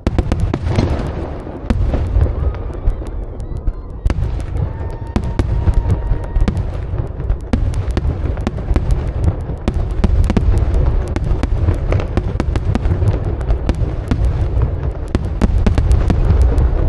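Fireworks display: a dense, continuous barrage of sharp cracks and bangs over a steady low rumble.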